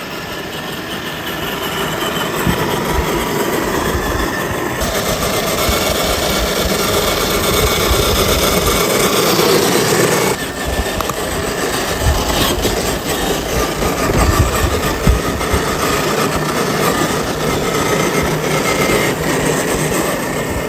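Electric motor and gear drive of a radio-controlled FMS Toyota Land Cruiser FJ40 crawler running as it drives off-road through mud. The noise builds over the first couple of seconds and changes pitch and texture as the throttle varies.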